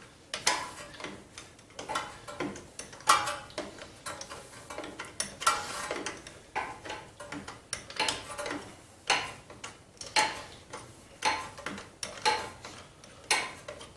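Ratchet clicking in short runs, about once a second, with light metal clinks, as a starter mounting bolt is backed out of the engine.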